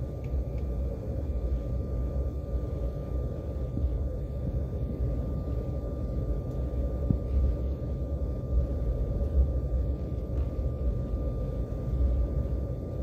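Airliner cabin noise while taxiing: the jet engines running at taxi power give a steady low rumble, with a faint steady whine over it.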